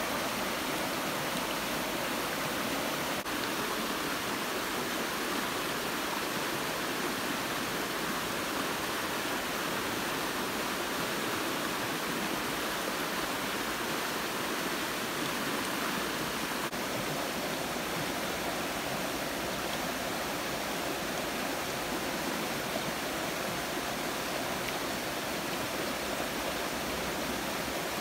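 Fast-flowing river rushing over rocks: a steady, unbroken roar of water.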